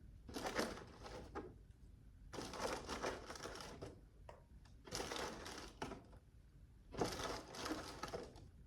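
Kitchen handling sounds from assembling a layered no-bake banana pudding: about five noisy scraping, crunching bursts, each about a second long and roughly two seconds apart.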